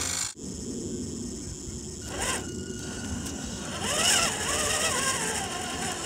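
Brushed electric motor and drivetrain of a scale RC crawler truck whining as it crawls over rock, the pitch rising and falling with the throttle, loudest about four seconds in, over a steady low rumbling noise.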